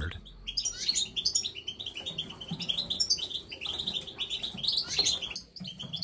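Small finches chirping in a quick, unbroken string of short high chirps, busier in the second half.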